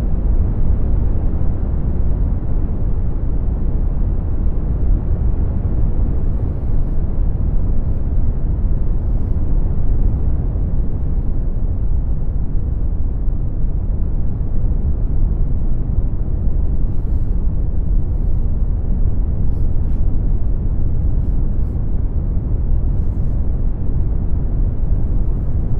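Synthesized brown noise: a steady, deep rumbling hiss with most of its weight in the bass and little above the mids. Faint high ticks come through now and then.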